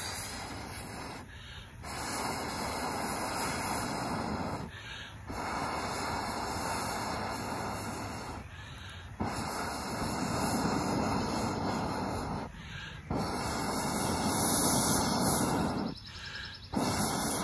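Breath blown through a telescoping pocket bellows tube into the hot coals of a campfire. It comes as a series of long, steady rushing blows of about three seconds each, with short quiet gaps for breath between them. The blowing is reviving the embers back into flame.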